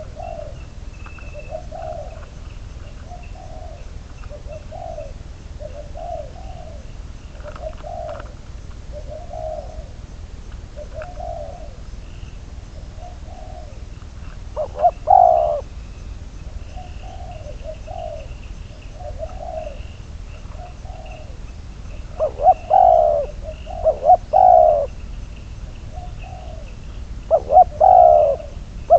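Spotted doves cooing: a soft, regular run of repeated coos, with several much louder close coo phrases about halfway through and again near the end.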